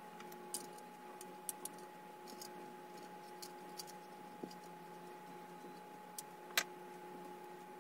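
Faint small clicks and ticks of a screwdriver and tiny mounting screws being worked into the side of a solid-state drive, the sharpest click about six and a half seconds in, over a steady hum.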